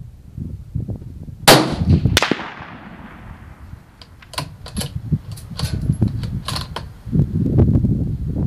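A Savage bolt-action .223 Remington rifle fires once, with a second sharp crack well under a second later and a long fading tail. This is followed by a run of short metallic clicks as the bolt is worked. Low rumbling wind noise on the microphone sets in near the end.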